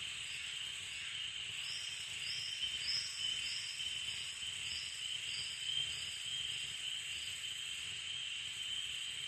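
Performance soundscape of a steady high-pitched hiss with short insect-like chirps over it, about two a second, which thin out and fade near the end.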